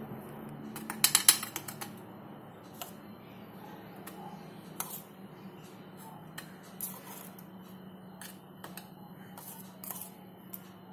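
Metal spoon clicking and tapping against metal while baking soda is sprinkled over a stainless steel gas-burner tray: a quick run of sharp clicks about a second in, then single taps every second or so.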